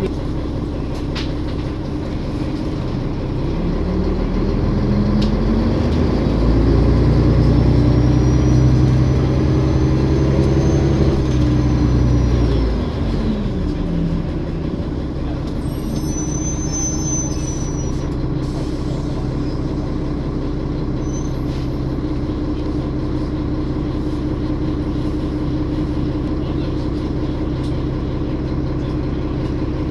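Olympian double-decker bus engine accelerating, its pitch climbing with a high turbo whine rising over it. It eases off about twelve seconds in and settles back to steady running. A brief high squeal comes a few seconds later.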